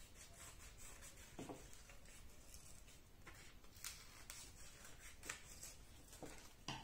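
Near silence, broken by a few soft snips of small scissors and rustles of folded coloured paper as bee wings are cut out.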